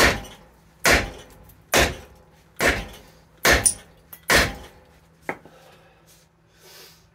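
Short-handled sledgehammer pounding the corroded, seized rear wheel bearing hub assembly of a 2012 Subaru Outback: six heavy steel-on-steel blows about a second apart, then one lighter knock. The hub is rusted solid in the knuckle and is just starting to crack around its outside.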